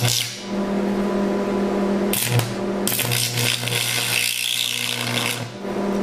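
Carbon arc drawn between two graphite rods on an old AC tombstone transformer welder set to 120 amps: a harsh crackling buzz, struck briefly at the start, again about two seconds in, then held for about two and a half seconds before breaking off. The welder's transformer hums steadily underneath.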